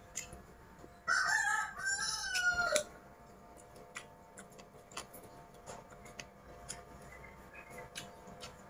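A rooster crows once, about a second in, a call of under two seconds that bends in pitch. Before and after it, small scattered clicks of chopsticks on dishes.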